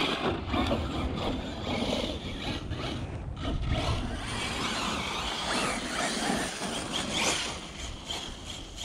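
Brushless electric RC truck running over a dirt track: motor and tyres scraping through loose dirt, mixed with wind rumbling on the microphone.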